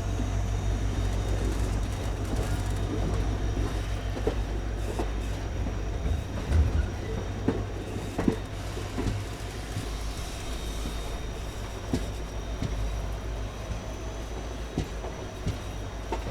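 Passenger train running along the track: a steady low rumble of the coach in motion, with scattered clicks and knocks from the wheels over the rails.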